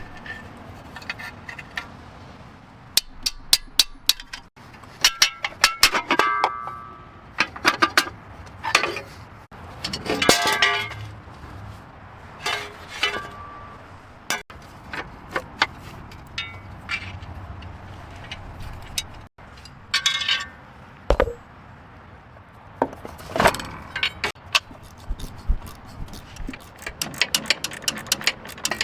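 Metal tools and parts clinking and knocking as they are handled, in irregular runs of sharp clicks, a few of them ringing briefly.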